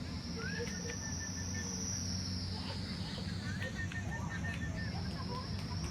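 Outdoor ambience: a steady high-pitched insect drone, with short bird chirps and a low steady rumble.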